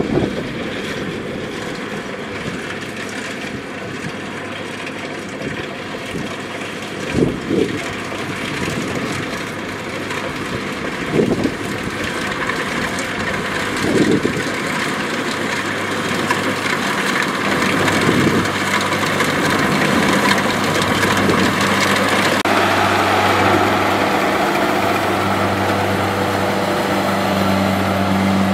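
Kubota rice combine harvester running steadily while it cuts rice, a continuous engine hum with machinery noise. A few brief knocks come in the first half, and the machine grows louder over the last few seconds.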